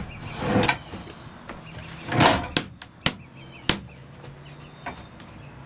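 Handling noises from a slide-out boat galley stove and its cabinet: a scraping swish as it slides about two seconds in, then a couple of sharp clicks or knocks about a second apart.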